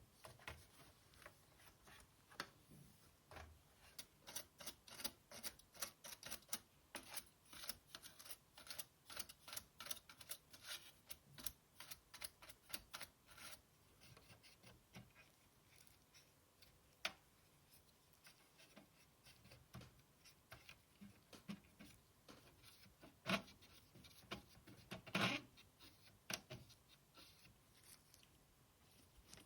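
Small parts of a PS4 Slim optical drive being handled during disassembly and cleaning: a quick run of light clicks and ticks, then a few scattered louder clicks and knocks of plastic and metal.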